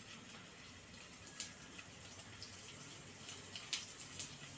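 Paneer cubes frying in hot oil in a kadhai as more cubes are set in: a faint, steady sizzle with a few sharp crackles and pops.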